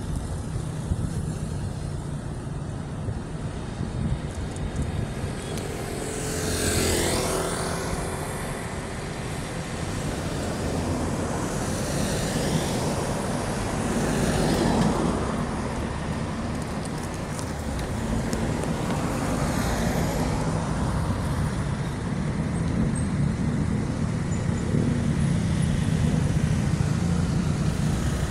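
Road traffic on a city boulevard: a steady low engine rumble with cars passing one after another, each swelling and fading, the clearest about a quarter of the way in.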